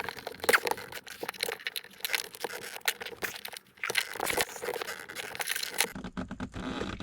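A plastic dash mount being pried off with a plastic trim removal tool: irregular crackling, clicking and scraping as the 3M adhesive tape holding it tears away and the plastic flexes.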